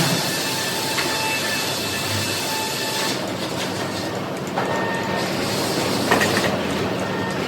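Sawmill machinery running, with a steady motor hum under the rattle of the board chain conveyor. A thin metallic squeal comes and goes, and a few sharp knocks sound, one about two-thirds of the way in and another near the end.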